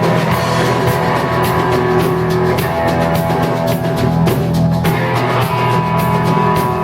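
Rock band playing live: electric guitar and bass over a drum kit keeping a steady beat with regular cymbal strokes.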